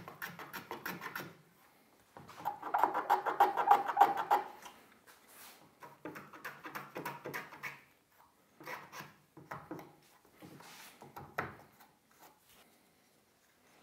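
A small wooden block rubbed quickly back and forth by hand on sandpaper, a fast scratchy rasping in several runs of strokes with short pauses. The longest and loudest run comes a couple of seconds in, and the strokes die out near the end.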